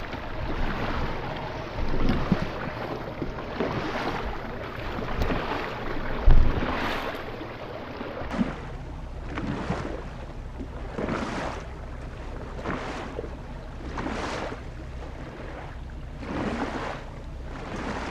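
Small waves slapping and washing against the hull of a small fishing boat, with wind on the microphone. In the second half it comes in regular swells every second or two, and there is a single low thump about six seconds in.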